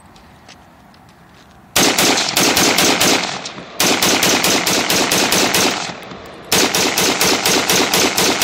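A .223 DoubleStar AR-15 rifle fed from a KCI 100-round drum magazine, firing rapid shots at about five a second. It fires three strings, the first starting about two seconds in, with short pauses between them.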